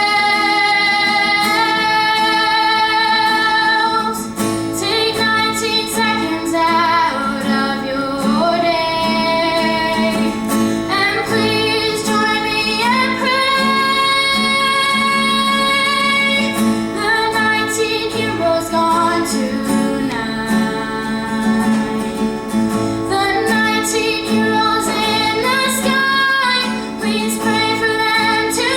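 A girl singing a slow song solo, holding long notes, over a plucked guitar accompaniment.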